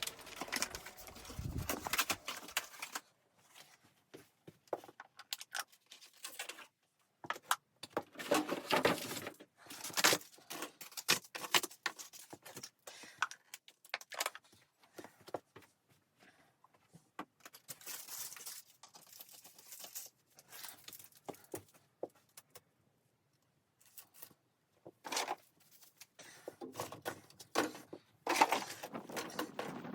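Irregular rustling, crinkling and light clicks and knocks, coming in spurts of a second or two with short pauses between, as things are handled.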